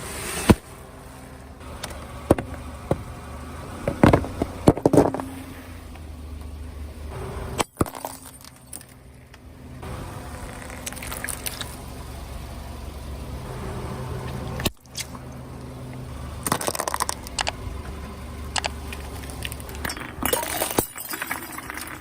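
A car's engine running slowly while its tyres roll over and crush brittle objects: bursts of sharp cracks, crunches and clinks over the steady engine hum, with abrupt breaks between clips.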